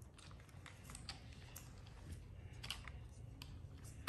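Faint, irregular clicks of a plastic transforming toy car's joints and panels being folded by hand as it changes from a Lamborghini Aventador into a robot.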